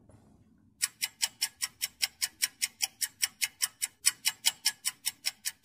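Ticking-clock countdown timer sound effect: rapid, even ticks at about five a second, starting about a second in.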